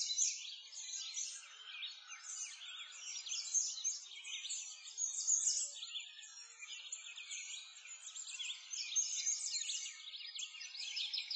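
Many birds chirping and singing at once, a dense, continuous chorus of quick high chirps.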